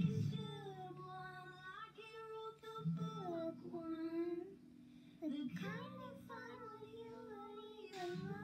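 A young girl singing a slow country-pop ballad, holding and bending long notes, over a quiet steady backing track.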